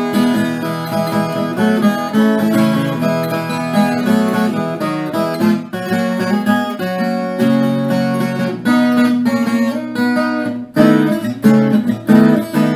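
Background music: acoustic guitar played with strummed chords and plucked notes.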